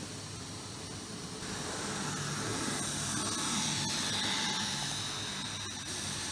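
Z-gauge model train running past close by: the faint whine of its small electric motor and the rolling of its wheels on the track, over a steady hiss. It grows louder about a second and a half in and eases off near the end.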